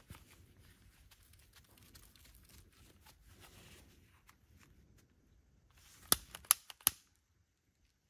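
Long butane torch lighter burning with a faint hiss as it sears the cut end of a new starter pull cord, then three sharp clicks a little after six seconds in as its igniter is triggered to relight the flame.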